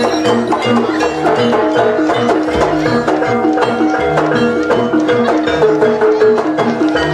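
Javanese jaranan music: gamelan-style struck metal gong-chimes and metallophones playing fast repeating patterns over a steady drum beat.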